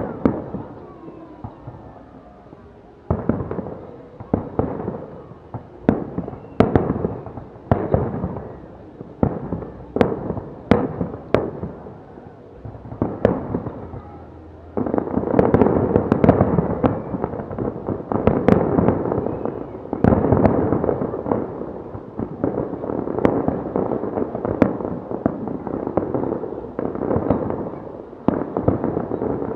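Fireworks display: sharp bangs of aerial shells bursting, one every second or two at first, then from about fifteen seconds in a dense, continuous barrage of bangs and crackle.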